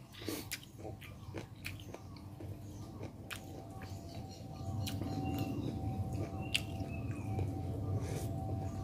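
A person chewing a mouthful of food, with scattered wet mouth clicks. About halfway through, a low rumble and a steady hum rise underneath.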